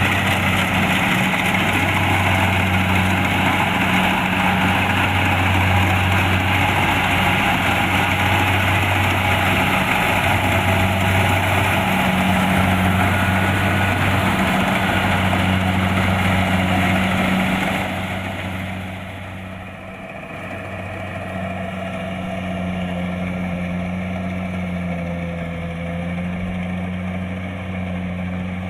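Kubota DC-70 Plus combine harvester's diesel engine running steadily, with a broad rushing machinery noise over it. About two-thirds of the way through, the rushing noise falls away and the engine carries on more quietly.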